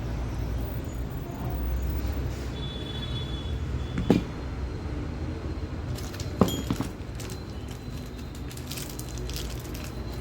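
Steady low hum with two sharp knocks, about four and six and a half seconds in, followed by light metallic clicking and rattling.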